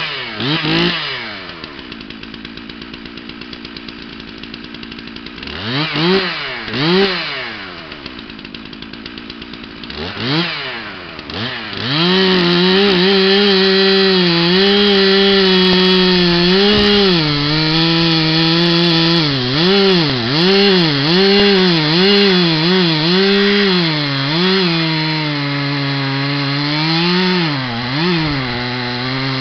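Stihl two-stroke chainsaw idling with short throttle blips, then held at full throttle from about twelve seconds in as it cuts into an ash log, its pitch dipping and recovering as the chain loads up in the wood.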